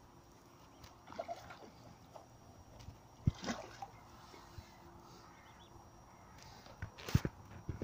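Faint splashing of a hooked carp at the water's surface, with scattered knocks; the loudest is a sharp thump about three seconds in, and more knocks come near the end.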